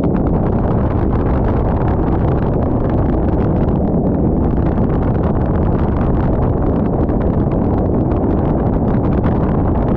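Speedboat with three 300-horsepower outboard motors running at speed: a steady, loud din with no breaks.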